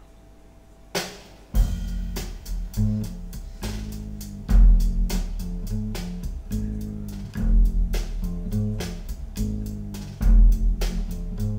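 Jazz band intro played through Cabasse Antigua MC170 loudspeakers and picked up by room microphones. After about a second of faint hiss, a drum hit sets it off, then a drum kit and deep bass play a steady groove.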